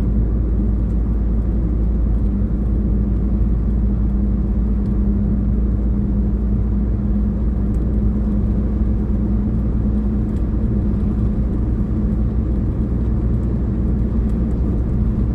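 Steady road and engine noise of a moving car heard from inside the cabin: an even low rumble with a constant hum.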